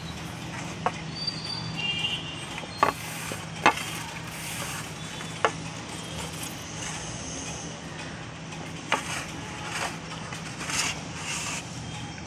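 Close-up mouth sounds of eating wet slate pencil paste: sharp clicks and smacks, the loudest about 3 to 4 seconds in and again near 9 seconds, with softer sticky crackles between, over a steady low hum.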